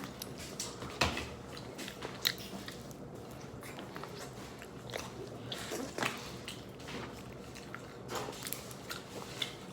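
Someone eating cake: quiet chewing with scattered light clicks, a louder pair about one and two seconds in.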